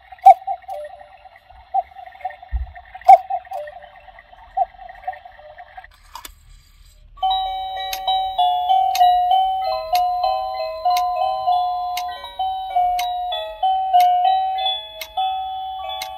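Battery quartz cuckoo clock's hourly show. First comes a steady whirring hum with a soft click about every second and a half. After a short pause, about seven seconds in, the clock's built-in electronic melody starts, playing a simple tune note by note with a light tick on the beats.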